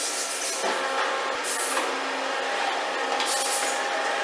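Large metal lathe starting up, its four-jaw chuck spinning up with a steady motor whir and hum from about half a second in, with two short hissing bursts.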